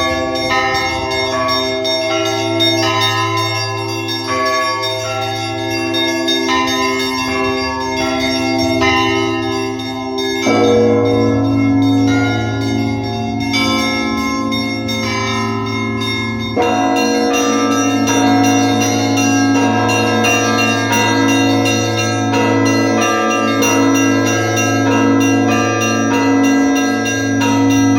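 Russian Orthodox church bells rung by hand in a festive peal for a feast-day liturgy: small bells struck rapidly over the ringing of larger bells. The peal grows louder, with lower bells coming in, at about ten and again at about sixteen seconds.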